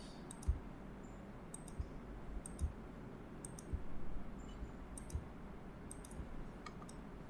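A computer mouse and keyboard clicking while someone works at a computer: about a dozen sharp clicks at irregular intervals, often in quick pairs, over a faint room hiss.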